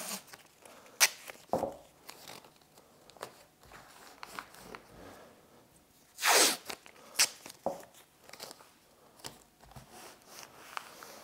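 Blue painter's tape pulled off the roll in one short rasping strip about six seconds in, the loudest sound, with a few sharp clicks and light crinkling as the tape is torn and pressed down by hand.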